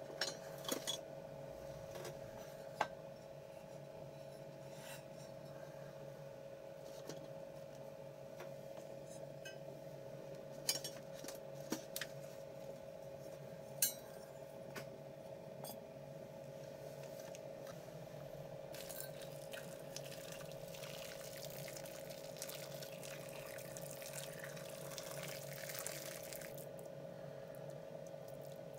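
Die-cast metal toy parts knocking and clinking as they are laid in a plastic tub, a few sharp knocks in the first half. Then water pours into the tub for several seconds in the second half, over a steady hum.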